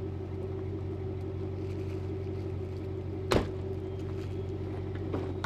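An engine idling with a steady low hum. One sharp knock comes about three seconds in and a fainter one near the end.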